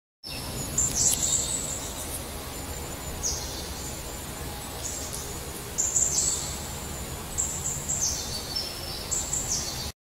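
Birds chirping: short, high chirps every second or so over a steady outdoor background hiss.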